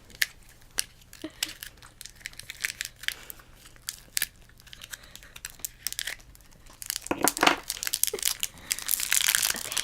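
Plastic toy packaging crinkling and tearing as it is handled and opened: soft scattered rustles and clicks at first, then louder, denser crinkling from about seven seconds in.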